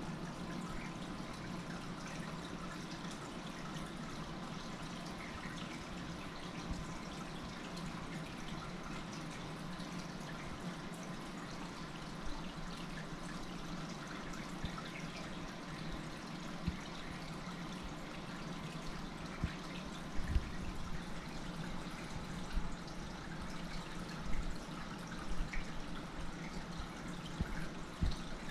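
Hang-on-back aquarium filter's outflow trickling steadily into the tank water, with a low hum underneath. A few soft low bumps come in the later part.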